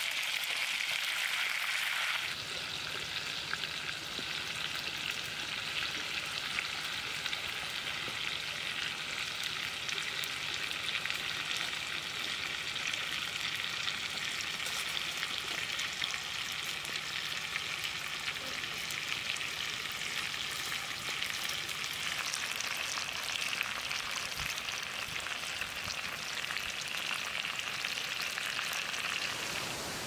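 Chicken pieces with chopped chili peppers sizzling as they fry in a pan, a steady crackling hiss.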